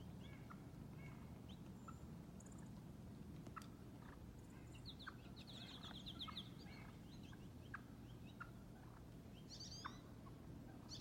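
Faint bird calls: scattered short chirps, with a quick run of high notes about five seconds in and another cluster near the end, over a low steady background hum.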